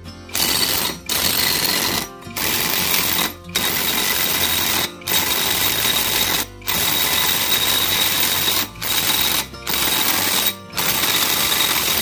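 Cordless brushless impact wrench, a knock-off Makita rated 880 Nm, hammering as it drives a large bolt tight through a 65 mm socket. It runs in about nine bursts of one to two seconds, with short pauses where the trigger is let go.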